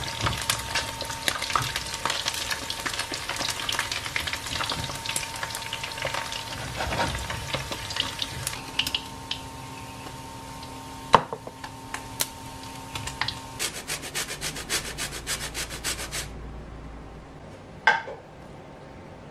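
Battered chicken pieces frying in oil in a stainless steel pan: a dense crackling sizzle for the first half. After that it is quieter, with a few sharp knocks, a quick run of evenly spaced ticks, and one short ringing tap near the end.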